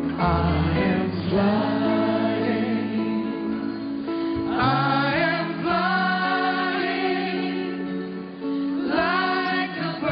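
Live music: voices singing long held notes with vibrato, backed by an orchestra and choir over sustained low chords.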